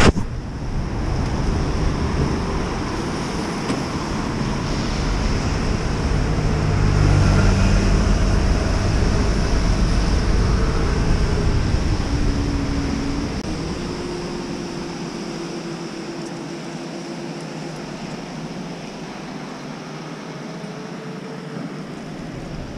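City street noise heard from a moving bicycle: a low rumble of wind and road traffic, strongest in the first half, that dies down after about fourteen seconds and leaves a steadier hiss with faint engine whines.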